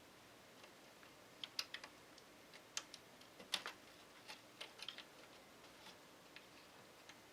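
Faint, irregular small clicks and taps, about a dozen in a cluster between one and five seconds in: plastic connectors and cables being handled and plugged in inside a PC case.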